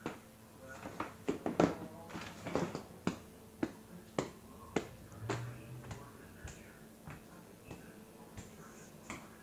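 A string of sharp, irregular clicks and knocks, coming thick and fast for the first few seconds and then more sparsely, with a short low hum about five seconds in.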